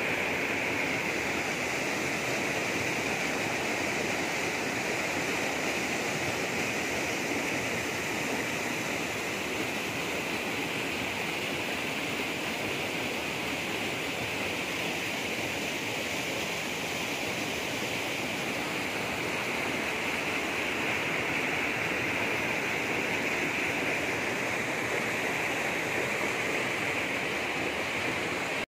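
Stream water rushing and splashing over boulders and down small waterfall cascades: a steady, even rush.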